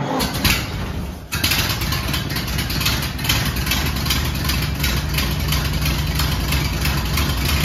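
1928 Ford Model A's 201-cubic-inch flathead four-cylinder engine starting, catching suddenly about a second in, then running at a steady cold idle with a quick, even beat.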